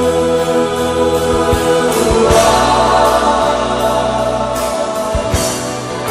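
Live Christian worship music: a band with many voices singing together in long held notes.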